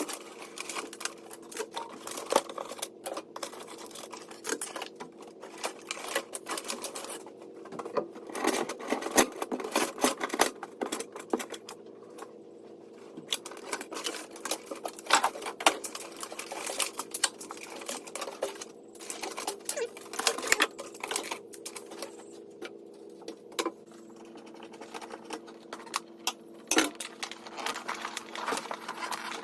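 Rapid, irregular clicking and clattering of hand work on a car's wiring, with a steady hum underneath.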